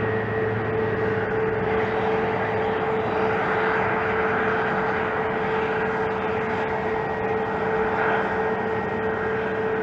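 CASA C-295MP's two Pratt & Whitney Canada PW127G turboprop engines at takeoff power as the aircraft rolls down the runway and lifts off: a steady drone with a constant hum tone running through it.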